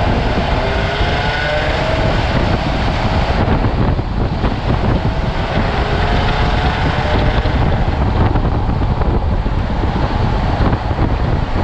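Wind buffeting a microphone slung under a moving 2012 Jeep Wrangler JK, over the faint hum of its V6 through the stock exhaust, whose pitch rises a couple of times as the Jeep gathers speed. The stock exhaust is barely heard: before the upgrade, there was really just nothing.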